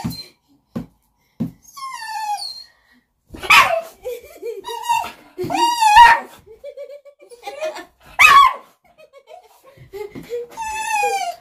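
Dog barking and whining, with high calls that rise and fall and three louder barks: it is demanding the ball held out of its reach.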